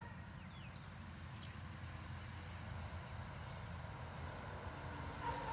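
Low, steady outdoor rumble, mostly in the bass, with a faint steady high tone above it.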